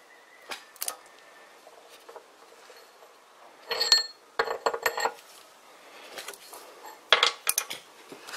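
Light metal clinks and scrapes in three short clusters, as a steel square is set against a power hacksaw blade resting on steel square tube to line up the cut.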